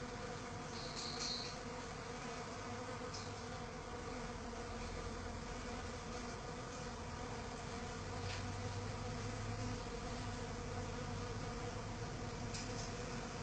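Euglossa orchid bees buzzing in flight: a steady, even hum, with a short high chirp about a second in.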